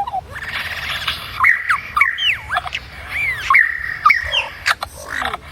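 Lyrebird mimicking other birds' calls. A harsh, rasping call comes first, then a quick run of swooping whistled notes broken by sharp clicks.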